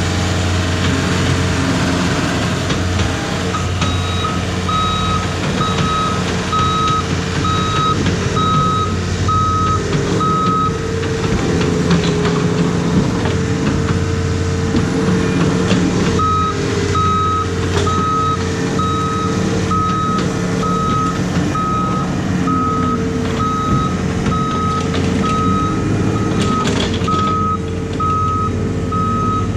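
Backup alarm on heavy earthmoving equipment beeping in an even string while the machine's diesel engine runs. The beeps break off for several seconds about a third of the way in, then resume.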